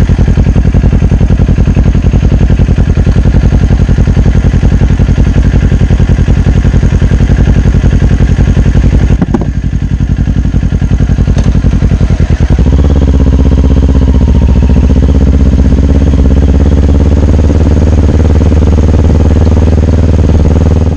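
Motorcycle engine running close to the microphone, loud and steady. About nine seconds in its sound dips and shifts, and from about twelve seconds it runs on at a steady, heavier note until it cuts off.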